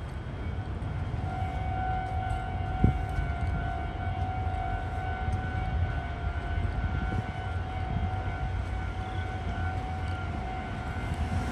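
Steady low rumble of city traffic with a steady high whine held over it from about a second in, and a single sharp knock about three seconds in.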